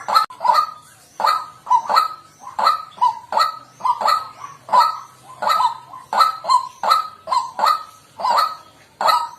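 White-breasted waterhen giving its repeated harsh, croaking 'kwak' calls, about two to three a second in an unbroken series.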